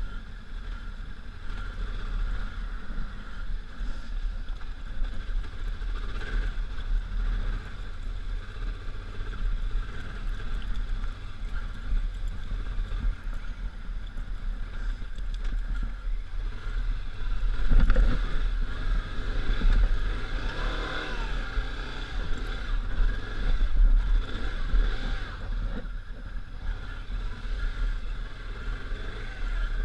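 The V-twin engine of a 1999 Honda Africa Twin motorcycle running on an off-road trail, with heavy low rumble. The revs swell and change pitch from a little past the middle.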